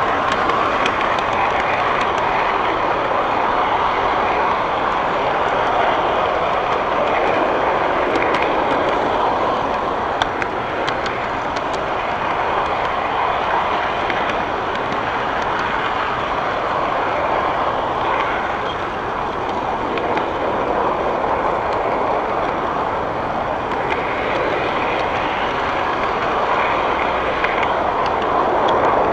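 Model train rolling along its track, heard from a camera riding on one of its cars: a steady running noise of wheels and motor, with a few faint clicks.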